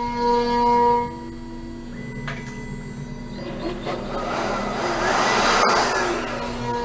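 CNC router spindle whining steadily while it cuts a hinge pocket, a little quieter after about a second. Midway, a handheld cordless blower blowing the chips clear adds a rushing whoosh of air for about three seconds, the loudest sound here.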